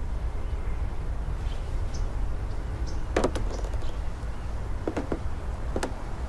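A low steady rumble with a few short knocks: one about three seconds in, a quick pair around five seconds, and another near the end. No music.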